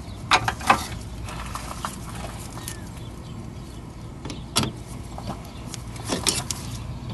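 A few sharp clicks and knocks of a gloved hand handling rubber heater hoses and metal hose clamps in an RV engine compartment, over a steady low rumble. The engine is off.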